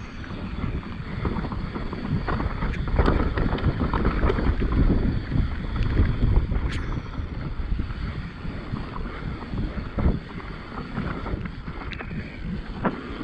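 Mountain bike ridden fast down a rough trail: wind buffeting the microphone over the rumble of tyres on dirt, with scattered knocks and rattles from the bike.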